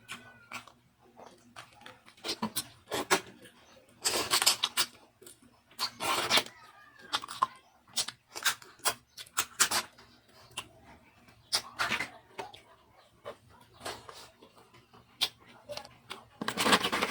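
Close-up eating sounds of a person eating seafood: wet chewing and lip smacks as a string of quick clicks, with a few louder, longer bursts about four seconds in, six seconds in and at the very end.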